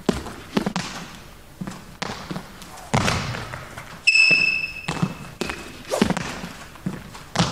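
Badminton court shoes pounding and skidding on a sports hall floor during quick footwork and lunges: a string of landing thuds and steps that echo in the large hall. About four seconds in there is one sharp, held shoe squeak lasting under a second.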